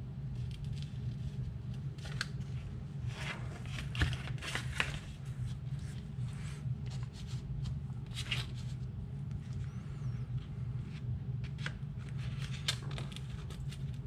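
Handling noises: scattered clicks, taps and rustles as a lipo battery, its wires and a soldering gun are picked up and set down, with a sharper knock about four seconds in, over a steady low hum.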